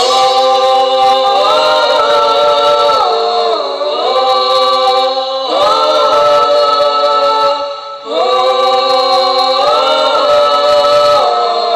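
Hadroh group's female voices singing a slow, unaccompanied passage with the frame drums silent. The melody comes in about three long phrases of held notes that glide up and down.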